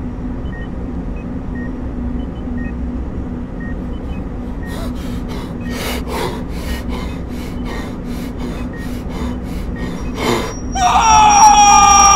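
Film sound design: a steady low electronic hum with a faint short beep about once a second, joined about five seconds in by a rapid run of sharp hissing bursts, about three a second. Near the end a whoosh gives way to a loud pitched sound whose several tones slowly fall.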